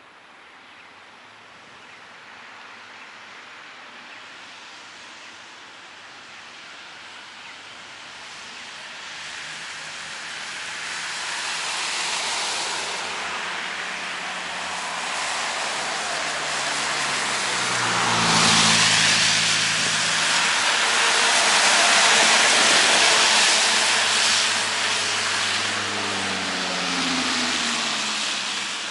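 A salt truck and cars driving past on a wet road: tyre hiss and engine sound grow steadily louder, are loudest from about eighteen to twenty-four seconds in as the vehicles go by, then ease off.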